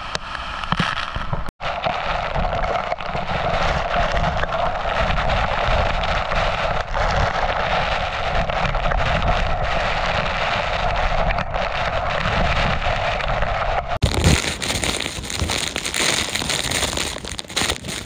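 Steady rush of heavy monsoon rain and flowing water, with a crackling patter. It drops out for an instant about a second and a half in, then turns suddenly brighter and harsher near the end.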